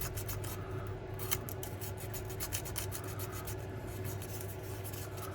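Emery cloth being rubbed over the metal driving wheel of a model locomotive in quick, irregular scratchy strokes, scouring off grime.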